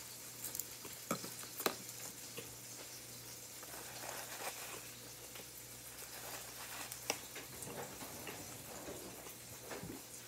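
Close-up chewing of a mouthful of leafy salad greens: soft crunching and wet mouth sounds, with a few sharp clicks. A low steady hum runs underneath.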